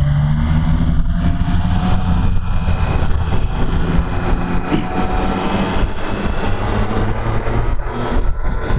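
Triumph Tiger Sport 660's three-cylinder engine running under way on track, its note climbing slowly over the first few seconds, with steady wind rush over the microphone.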